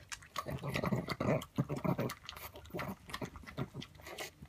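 A pug eating from a ceramic bowl: quick, irregular licking and smacking with many small clicks of tongue and teeth against the bowl, mixed with snuffling breaths through its short nose.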